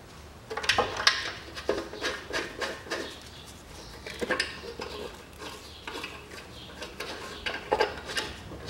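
Stamped sheet-metal exhaust manifold heat shield clinking and rattling as it is handled and fitted onto the manifold: a series of light metallic knocks and scrapes.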